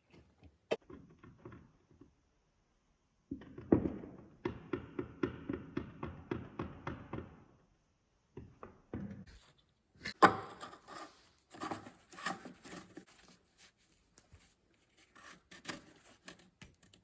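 A series of soft knocks and thuds. For several seconds they come evenly at about three a second, then give way to irregular clattering knocks.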